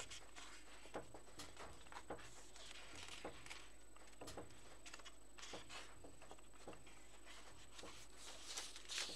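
Paper pages of a colouring book being turned and handled: soft rustles and light clicks at irregular moments.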